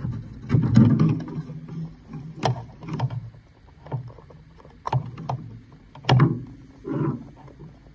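Handling noise from cables and plastic connectors being pulled and knocked against a standing desk's metal frame while its control box is swapped: scattered sharp clicks and knocks over low rustling.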